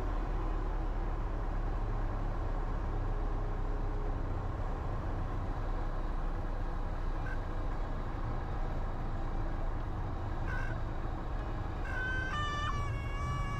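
Cessna 172H cockpit noise during the final approach, with the Continental O-300 six-cylinder engine at idle and a steady rush of wind and engine. About twelve seconds in, a high wavering tone that shifts in pitch sounds for about two seconds near the end, which fits the stall warning horn as the plane is flared for touchdown.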